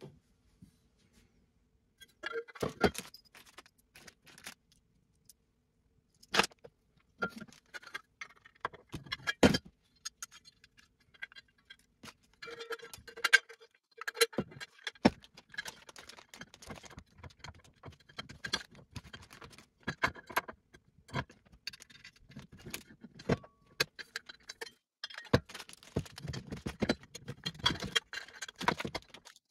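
Steel TV-bracket parts, bolts, nuts and washers clinking and clattering on a wooden workbench as they are handled and bolted together by hand, sped up to double speed. The sharp metallic clicks and knocks start about two seconds in and come in irregular runs.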